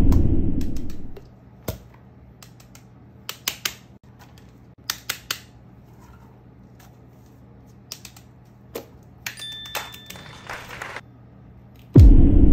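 A deep boom sound effect fades over about the first second. Then come scattered sharp clicks and taps, in small groups, like plastic fidget toys being handled. A second loud boom starts near the end.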